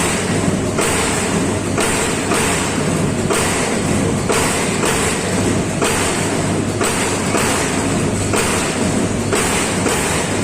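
Amada Pega 357 CNC turret punch press working stainless steel sheet: a repeating stroke a little more than once a second, over the machine's steady hum.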